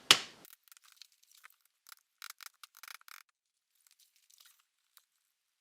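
Small hand-tool and plastic handling noises on a Roomba 770 drive-wheel assembly: a sharp click, then scattered faint clicks and scrapes as the pin is worked out of the wheel module.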